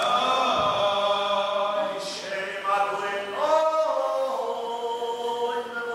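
Liturgical chanting of a synagogue prayer by a male voice or voices, with long held notes and sliding turns between them.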